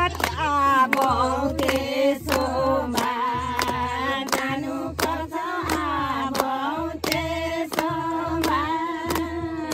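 A group of people singing a folk song together in unison, with women's voices prominent, to steady hand-clapping about twice a second.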